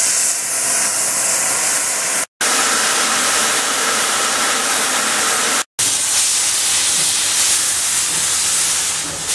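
Steam locomotives blowing off steam through open cylinder drain cocks: a loud, steady hiss. It breaks off twice into a brief silence, about two seconds in and again about five and a half seconds in.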